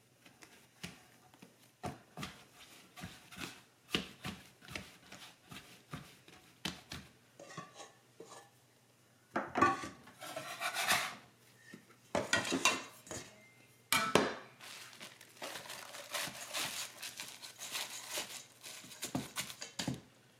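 Kitchen utensils and pans being handled, with irregular clinks and taps and a few longer stretches of scraping noise about halfway through and near the end.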